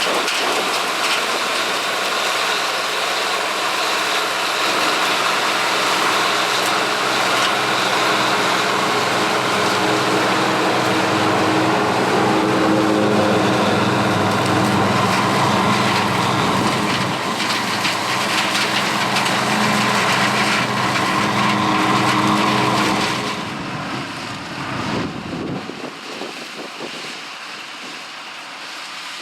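Gleaner L3 combine's turbocharged Allis-Chalmers six-cylinder diesel and threshing machinery running steadily while harvesting corn. The machine sound fades away over the last several seconds, leaving a quieter steady rush.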